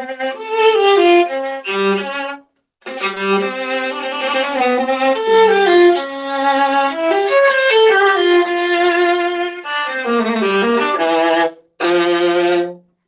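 Solo viola playing a phrase of bowed notes, some sliding between pitches, with short pauses about two and a half seconds in and near the end. The playing stops just before the end. It is heard through a crunchy microphone.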